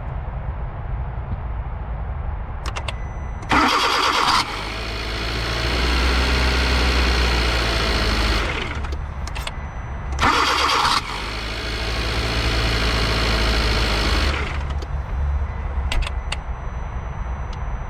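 A 2012 Kia Soul started twice: each time the starter cranks briefly, then a whirring rises as the engine catches and runs for about four seconds before fading. The whirring is the sign of a faulty overrunning clutch in a remanufactured starter.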